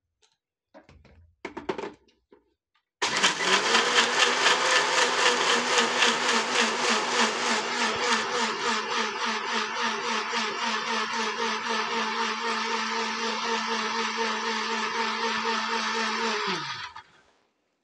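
Kitchen mixer-grinder (mixie) grinding soaked rice, urad dal and coconut pieces with water: a few light clicks as the jar is fitted, then the motor starts about three seconds in and runs steadily for about thirteen seconds. Near the end it is switched off and the pitch falls away.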